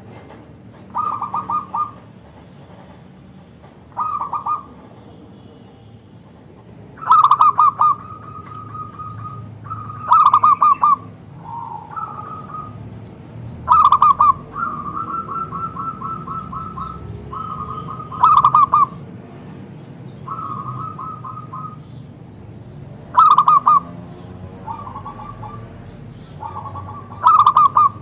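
Zebra dove (perkutut) cooing: loud short phrases of rapid coos repeated about every three to four seconds, with softer, longer strings of quick coos between them.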